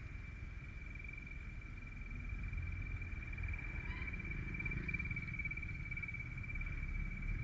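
Motorcycle ride heard from the rider's camera: a low engine and road rumble that swells slightly partway through, with a steady high-pitched whine held at one pitch throughout.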